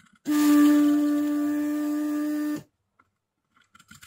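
Vacuum pump of a Weller WR3M rework station running for about two seconds as the desoldering iron sucks molten solder from an IPM pin, a steady hum that switches on and cuts off sharply. A few faint clicks follow near the end.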